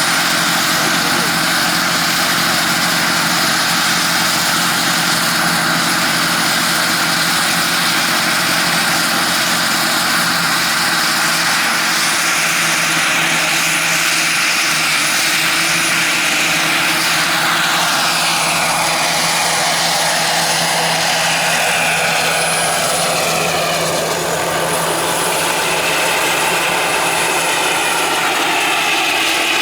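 Quarter-scale AS350 Ecureuil model helicopter with a Jakadofsky 5000 Pro turbine, running steadily: a high turbine whine over rotor noise. About two-thirds of the way through, the pitch glides down as it passes by.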